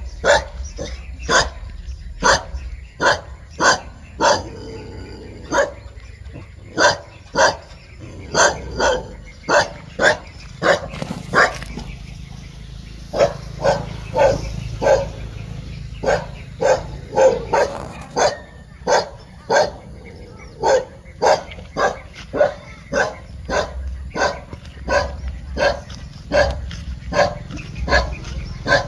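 Dog barking repeatedly and steadily, about two barks a second, with a couple of short pauses.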